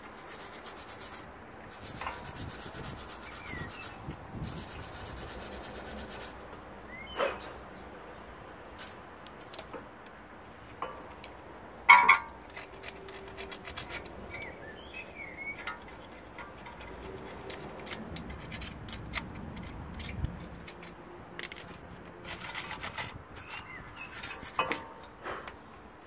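A hand brush scrubbing and scraping the metal front brake caliper carrier clean, in stretches of scratchy rubbing with small clicks. There is one sharp metallic knock about halfway through.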